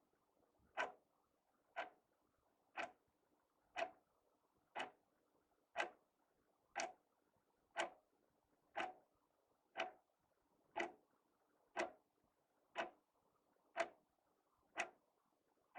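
House wall clock ticking steadily, one sharp tick about every second.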